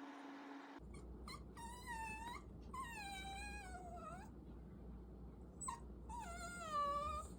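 Shiba Inu whining: a few short squeaks, then three drawn-out whines about a second or more each, the middle one sliding down in pitch and the last one starting about six seconds in.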